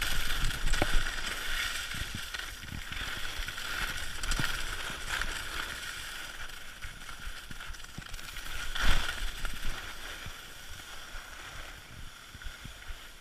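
Skis scraping and hissing over packed, chopped-up snow on a downhill run, with wind rumbling on the microphone. The sliding noise fades as the run goes on, with one louder scrape about nine seconds in.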